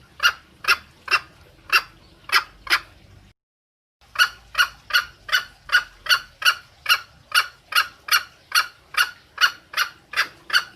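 Green junglefowl hen calling in a fast run of short, evenly spaced clucks, about two to three a second, the call a hen gives when seeking a male. The sound drops out completely for under a second a little over three seconds in, then the clucking carries on.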